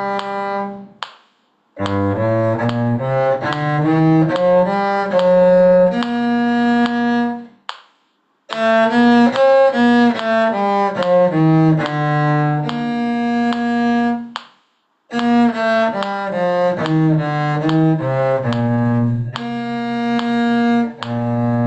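Bowed string instruments playing a brisk, rhythmic tune in low and middle registers. The tune comes in short phrases, with brief pauses about a second and a half in, around eight seconds and around fifteen seconds.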